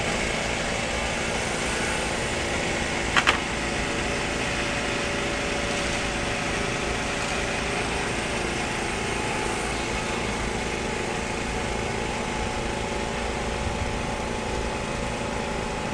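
Steady drone of a small motor running, with two sharp knocks close together about three seconds in.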